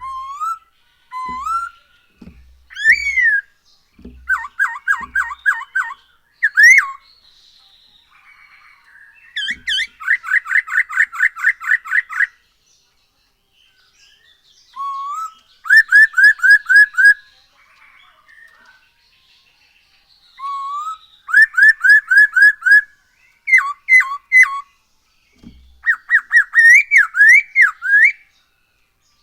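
Masked laughingthrush (poksay hongkong) singing loudly: rising whistled notes and rapid runs of repeated notes, about five a second, in bouts with short pauses between.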